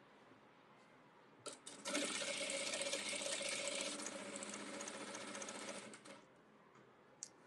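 Industrial sewing machine stitching a seam in one run of about four seconds, starting about two seconds in and stopping near six seconds, a little quieter in its second half. A couple of light clicks come just before the run, and one more near the end.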